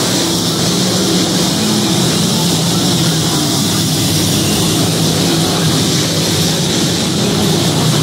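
Dirt-track race cars running at speed around the track, their engines a loud, steady drone.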